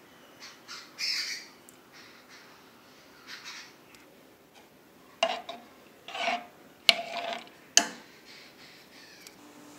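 A metal spoon stirring split moong dal in water in a metal pot, scraping and clinking against the pot, with two sharp clinks near the end. A brief high squeak about a second in.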